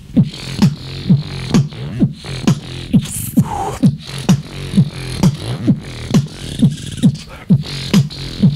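Beatboxer performing a fast beat with the mouth: a kick drum sound about twice a second with snare and hi-hat sounds between the kicks, over a continuous low bass hum.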